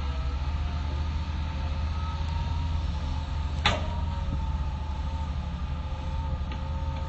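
Hitachi excavator's diesel engine running steadily with a low rumble and a wavering whine above it. A single sharp knock comes a little past halfway.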